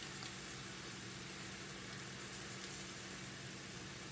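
Faint, steady hiss with a low hum underneath: food frying in a pan on the stove.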